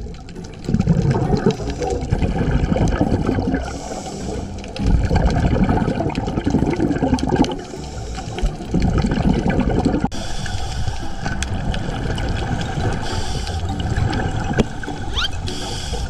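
Underwater bubbling and gurgling, most likely a scuba diver's exhaled air from the regulator, coming in surges a few seconds apart.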